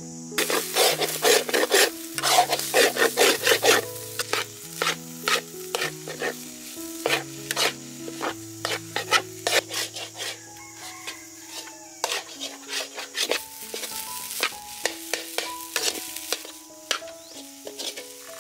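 Metal slotted ladle scraping and knocking against a steel wok as rice is stir-fried, over a light sizzle. The scrapes come in quick runs, loudest and densest in the first few seconds, then sparser.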